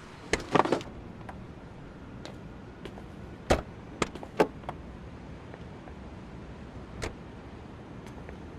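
Minivan door clicking and shutting: light clicks of the handle and latch, a door closing with a thump about three and a half seconds in, then a few more sharp clicks.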